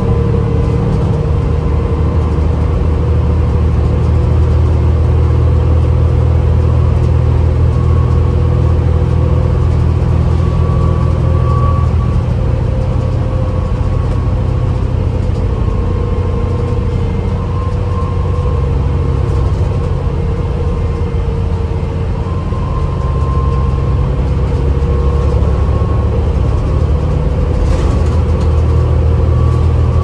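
Inside the cabin of a 2010 New Flyer DE40LFA diesel-electric hybrid bus cruising at speed: a steady, loud low rumble of its Cummins ISL diesel engine and the road, with a faint whine over it that wavers slightly in pitch.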